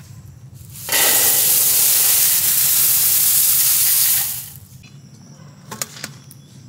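Crisp dried yellow flakes poured from a steel container into a large steel bowl: a continuous dry rustling hiss of the falling flakes, starting about a second in and stopping after about three and a half seconds.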